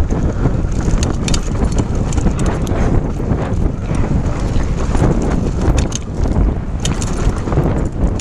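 Mountain bike riding fast down a downhill trail: a steady rumble of wind on the microphone and tyres on dirt, with scattered sharp rattles and clacks from the bike over bumps.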